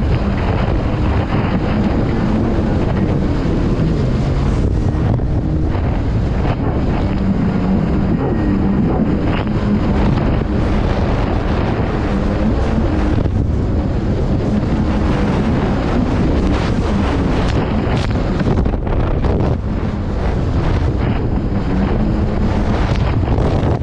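Kawasaki STX160 jet ski running under way, its engine drone buried in heavy wind buffeting on the microphone, with the hull slapping through choppy water.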